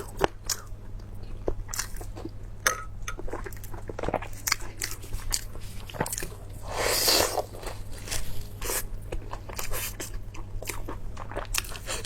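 A person chewing and biting food close to the microphone, with many irregular crisp crunches and clicks and a louder noisy crunching stretch about seven seconds in.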